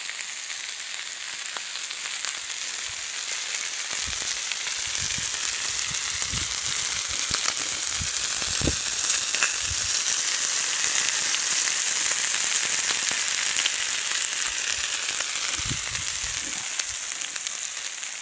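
Lamb rib chops searing in oil on a hot round flat-top griddle: a steady sizzle with scattered small pops and crackles. It grows louder toward the middle and eases off near the end.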